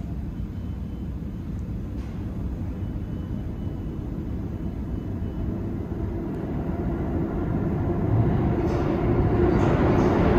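New York City subway train on the Lexington Avenue line, a steady low rumble that grows louder over the last few seconds.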